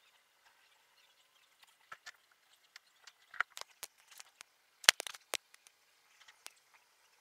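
Phone handling noise as the camera is swung around: scattered clicks and scratches on the microphone, the loudest a sharp click about five seconds in.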